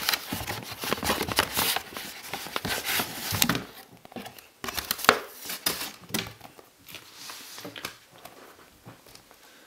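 Packaging crinkling and rustling as a football is taken out of it. The handling is dense and busy for the first few seconds, then thins to occasional quieter rustles.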